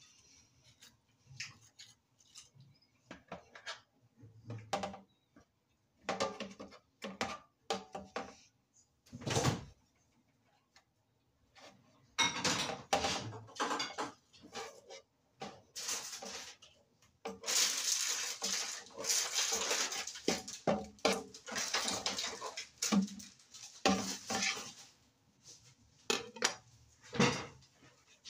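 A serrated knife scraping and knocking against a plate as a tomato is cored and its insides scraped out: irregular clicks and scrapes, with a long busy stretch of scraping in the second half.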